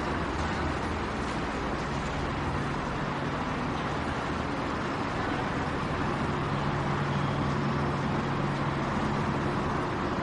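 Metro station ambience: a steady rumble of mixed station noise, with a low hum that comes in about two seconds in and holds through most of the stretch.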